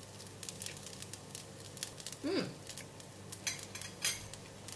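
Light clicks and scrapes of a metal spoon scooping fried rice in a nonstick wok, with a short hummed "mm" about two seconds in as the rice is tasted.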